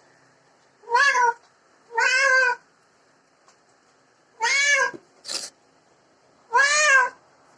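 A domestic cat meowing loudly while being bathed: four drawn-out meows, each rising then falling in pitch, with a short noisy burst between the third and fourth.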